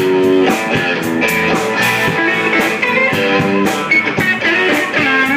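Blues band playing an instrumental passage, a guitar playing lead lines over a steady beat.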